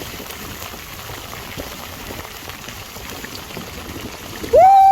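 Heavy rain falling steadily, an even hiss of drops. Near the end a loud, steady high tone with overtones starts abruptly and holds.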